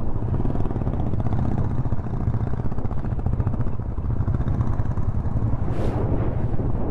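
An engine running steadily with a rapid low pulsing, and a brief hiss about six seconds in.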